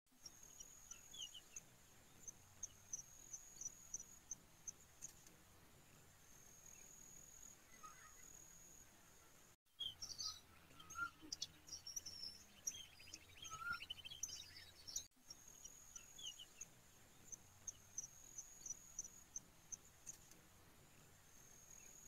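Faint nature ambience: a steady high insect trill with short repeated chirps, and now and then a bird chirp. Just under ten seconds in, the sound cuts abruptly to a busier stretch of bird chirps lasting about five seconds, then the insect trill pattern returns.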